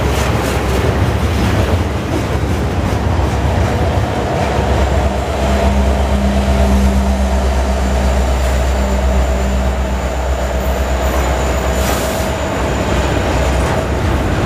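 Double-stack container freight train rolling past, its wheels rumbling steadily over the rails. About halfway through, a mid-train diesel locomotive goes by, and its engine adds a deep drone that swells and then fades as the well cars follow.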